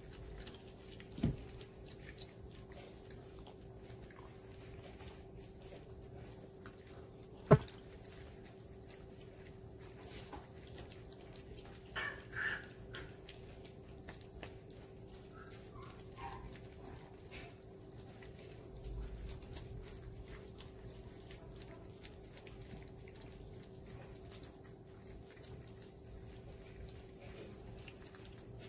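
Golden retriever puppies eating from food pans: soft lapping and smacking throughout, with a sharp knock about a second in and a louder one about seven seconds in. Around twelve seconds there are two short high squeaks from a puppy, and a steady low hum runs underneath.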